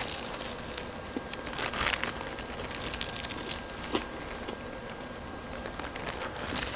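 Disposable plastic gloves crinkling and crisp fried chicken crackling as it is torn apart by hand, with scattered small clicks. There is a louder crackly tear about two seconds in.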